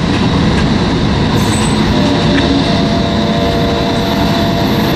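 Freight train of tank cars rolling by, a steady heavy rumble of wheels on rail. A faint, steady wheel squeal joins about two seconds in.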